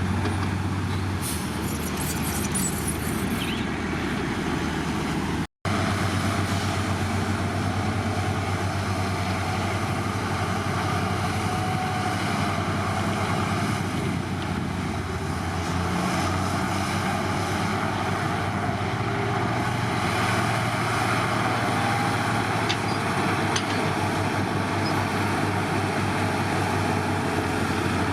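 Heavy diesel engine of earthmoving machinery running steadily, with a split-second break in the sound about five seconds in.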